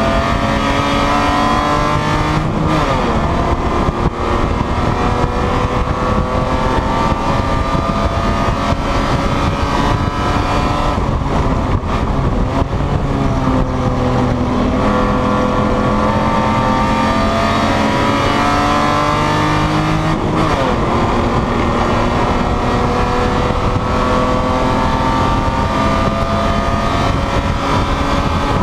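Racing BMW E30's inline-six engine under hard throttle, heard from inside the stripped, caged cabin. Its revs climb slowly and drop sharply about two and a half seconds in and again about twenty seconds in, with a shorter dip near twelve seconds.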